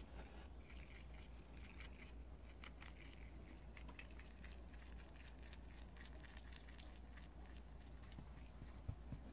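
Prairie dogs chewing fresh grass: quiet, quick crunching and crackling bites, with one louder knock near the end.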